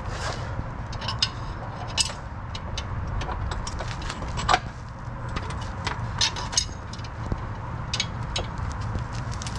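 Hand tools clinking and knocking on metal during work on the rear leaf-spring shackles and their bolts: scattered short clicks and taps, the sharpest about two seconds and four and a half seconds in, over a steady low rumble.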